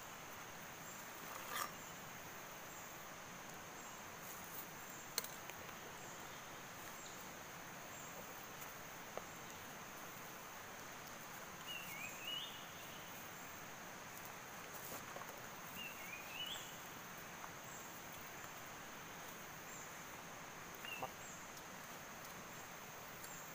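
Tropical forest ambience: a steady, high-pitched insect drone with a faint regular pulse. A bird gives two short warbling calls around the middle and a brief chirp near the end, and a sharp click comes about five seconds in.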